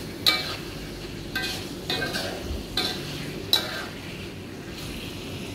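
Spatula scraping and stirring chicken and tofu through thick, sizzling sambal tumis in a wok, about five scraping strokes in the first few seconds, then only a low sizzle. This is the final stirring, working the sambal well into the chicken and tofu.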